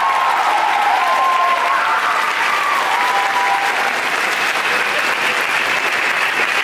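A large audience applauding, with a few long whoops from the crowd over the clapping during the first three or four seconds.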